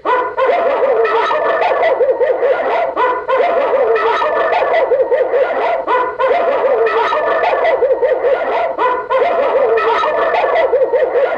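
Amseco VSD-208 voice driver sounding its electronic alarm tone through a Simplex speaker: a loud, rapidly warbling siren-like tone with a sweep about once a second, the tone part of its burglary alarm cycle between voice messages.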